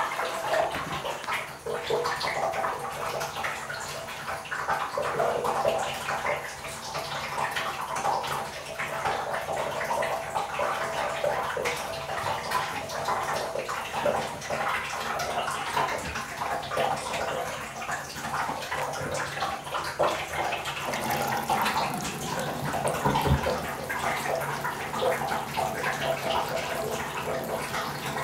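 Tap water running steadily and splashing into a bathroom basin. The sound grows fuller and lower about three-quarters of the way through.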